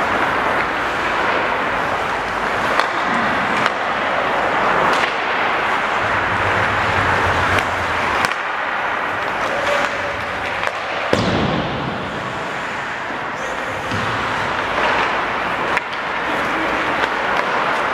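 Ice hockey play: a steady scraping hiss of skates on the ice, with a few sharp knocks of sticks and puck.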